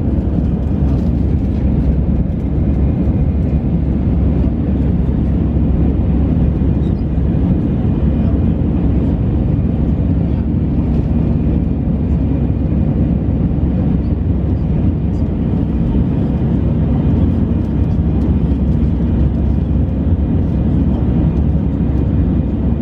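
Steady jet engine and airflow noise inside the cabin of an Airbus A319, a deep even rush with a faint hum running through it.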